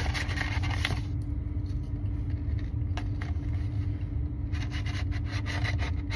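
A beagle nosing into a red paper food box held in a hand, the paper crinkling and scraping in two spells: through the first second, then again from about four and a half seconds in. Underneath runs the steady low rumble of the car interior.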